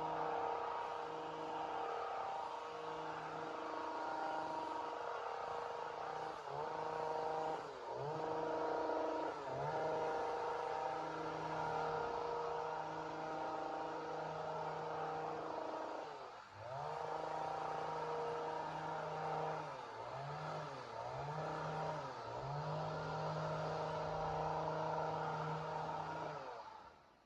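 Chainsaw engine running at high revs, its pitch dipping briefly and climbing back several times, then dying away near the end.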